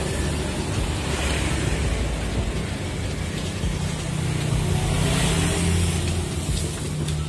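Steady low rumbling background noise with an even hiss over it, with no distinct events.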